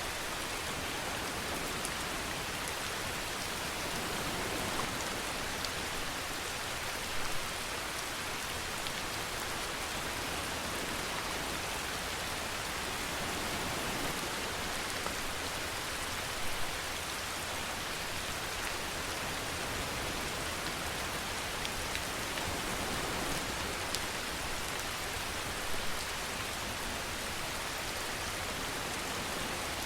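Steady rain falling on a surface, an even hiss with a few louder drop hits here and there.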